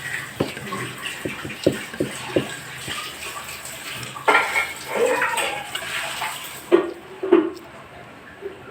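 Eating sounds at a table: a run of light clicks and knocks from cutlery and dishes over the first couple of seconds, then louder mouth and handling noises about halfway through.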